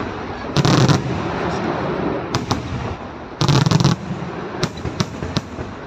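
Aerial firework shells bursting. Two dense volleys of bangs come about a second in and at about three and a half seconds. Between and after them there are single sharp reports over a steady din of smaller bursts, which fades near the end.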